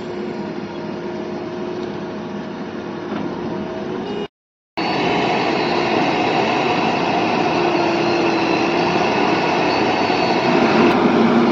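Heavy diesel machinery running steadily, an engine drone with a faint steady whine over it. It breaks off for half a second about four seconds in and comes back a little louder.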